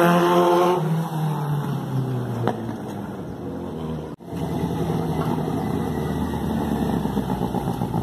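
Suzuki Bandit's inline-four engine, breathing through a homemade exhaust tip made from a Coca-Cola can, running at a high steady rev that drops in pitch and fades as the bike rides away. After an abrupt break about four seconds in, a lower, uneven engine note comes in as the bike rides back.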